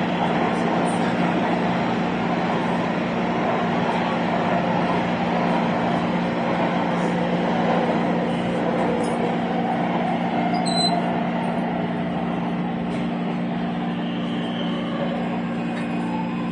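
Taipei Metro train running, heard from inside the carriage: a steady rumble of wheels on rail with a constant low hum. A brief high beep sounds about eleven seconds in, and the noise eases slightly after about twelve seconds.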